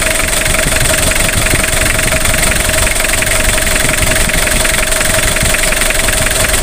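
Diesel engine idling steadily, with an even, rapid clatter and a steady whine over it.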